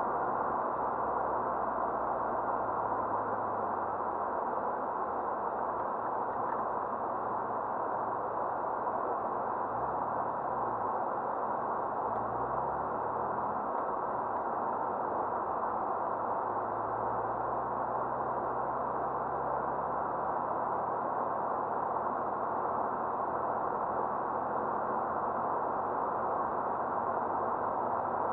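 Muffled in-cabin noise of a 1985 BMW 735i driving, its 3.4-litre straight-six running under a steady hum of road and wind noise. The engine note rises and falls a few times, about ten seconds in and again later, as the car changes speed.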